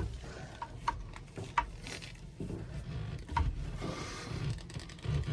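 A few sharp, irregular clicks and knocks of a wrench on a boat's fuel water separator filter as it is tightened, over a low handling rumble.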